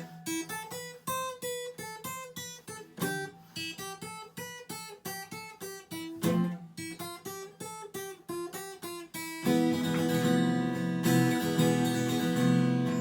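Acoustic guitar playing a song's introduction: single picked notes, a few a second, for about nine seconds, then full strummed chords ringing on, louder.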